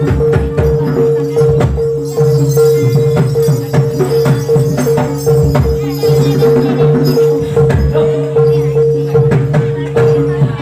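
Jaranan dance music: drums and percussion beat a rhythm under a steady held tone.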